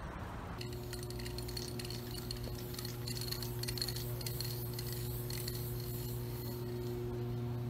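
Aerosol spray-paint can hissing in short, repeated sprays, strongest in the middle stretch, over a steady low hum from some nearby machine.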